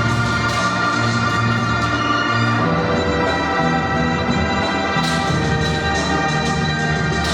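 Background music: held chords over a pulsing bass line, shifting to a new chord about two and a half seconds in and growing brighter about five seconds in.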